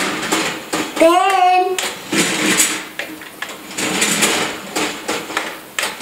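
A toddler's wordless, warbling sing-song vocalizing about a second in, over a steady noise of unclear source.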